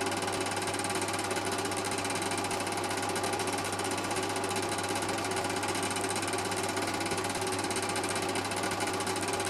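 Cine film projector running: a steady, fast mechanical clatter over a low hum, unchanged through the picture cuts.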